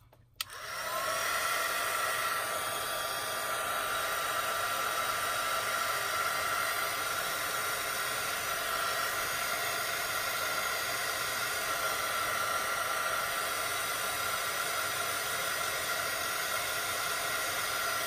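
Electric heat gun running steadily, blowing hot air: a fan rush with a steady whine on top. It spins up with a short rising whine about half a second in and is switched off right at the end.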